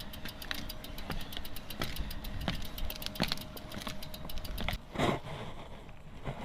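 A bicycle's rear freewheel hub ticking quickly and evenly, about five or six clicks a second, as the bike is wheeled along without pedalling, with wind rumbling on the microphone. The ticking stops near the end, followed by a short louder burst.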